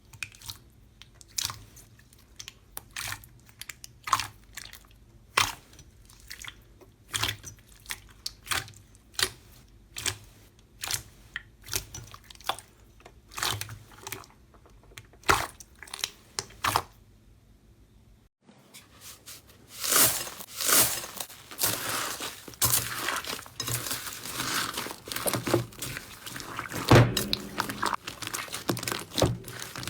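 Slime being pressed and squeezed by hand, giving sharp separate pops and crunches about once or twice a second. After a brief pause near the middle comes a denser, louder run of crackling crunches.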